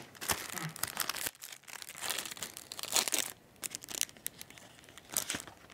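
Newspaper rustling and crinkling under working hands, with scattered light clicks and taps of small hand tools being handled.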